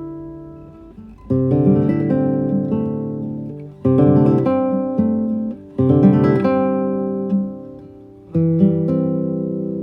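Acoustic guitar music: chords struck and left to ring out, a new one about every two to two and a half seconds.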